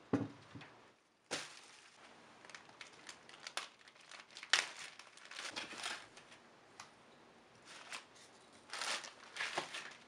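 A ceramic plate set down on a cloth towel with a soft knock, then irregular crinkling of plastic zip-lock freezer bags as frozen sambousa pastries are pulled out and laid on the plate.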